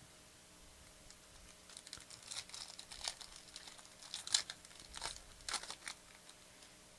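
Foil wrapper of a 2014-15 Panini Prizm basketball card pack crinkling and tearing as it is ripped open by hand. It comes as a run of irregular sharp crackles, starting about two seconds in and loudest a little past the middle.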